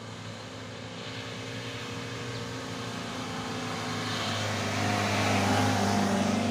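Engine of a heavily loaded small pickup truck running at steady revs as it drives up and passes close by, growing steadily louder and loudest as it goes past near the end.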